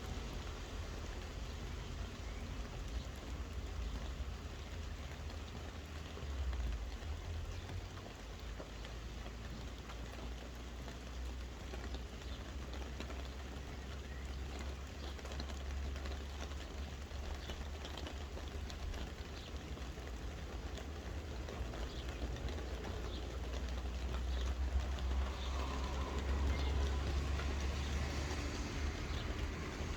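Steady soft rain, a dense patter of drops, over a low rumble that swells about six seconds in and again near the end.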